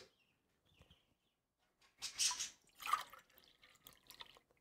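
Kitchen paper being pressed and blotted against wet raw chicken drumsticks: two short, soft, moist sounds about two and three seconds in, then a few faint ticks.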